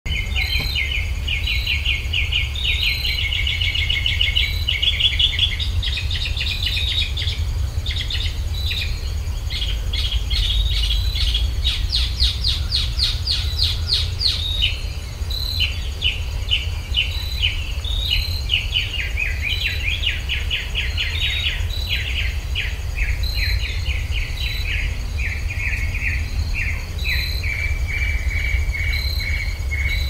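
Several songbirds singing at once: fast, dense trills and rapidly repeated chattering notes, giving way after about 19 seconds to a slower series of repeated notes at a lower pitch. Beneath them runs a steady low rumble, and a faint steady high insect hum with regular high pips.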